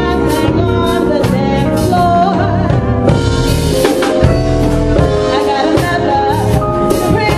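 Live soul band playing: a woman singing over drum kit, bass and keyboards, the drums keeping a steady beat with regular cymbal strikes.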